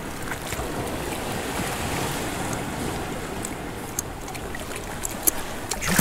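Sea washing and surging against the rocks at the water's edge, a steady rushing noise with a few faint ticks. Near the end a louder splash as a small ray drops back into the water.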